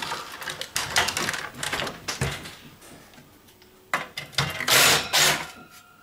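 Sheet-metal receiver chassis clattering and knocking on the bench as it is handled and turned over. About five seconds in, a Porter-Cable 20V cordless drill runs in two short bursts, backing a screw out of the bottom panel.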